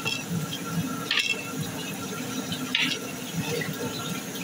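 Thick beef curry with yogurt being stirred in a large metal pot with a long metal spoon: the sauce sloshes and squelches steadily, with two short scrapes of the spoon against the pot, about a second in and again near three seconds.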